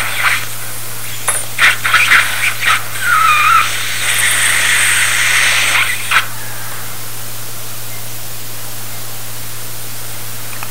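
Dental surgical suction tip drawing blood and saliva from the mouth: an irregular slurping hiss with gurgles and clicks and a short whistling glide, which stops abruptly about six seconds in.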